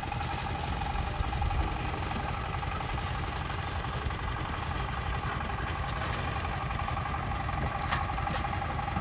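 A motor engine running steadily with a constant hum, under a low, irregular rumble.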